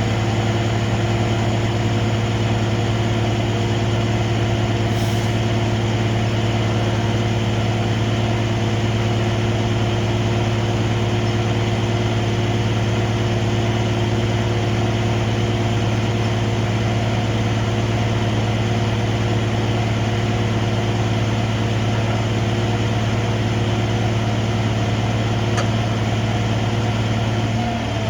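Heavy rotator tow truck's diesel engine running steadily at a constant speed, a deep even hum with no change in pitch.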